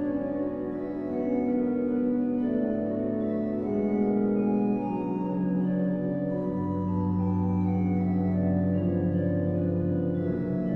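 Pipe organ playing a chorale prelude in slow, held chords, with a deep bass note entering about two-thirds of the way through.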